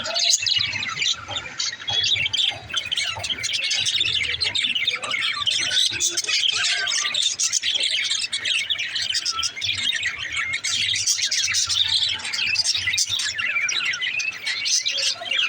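Budgerigars chattering: many quick, overlapping chirps and warbles with no break.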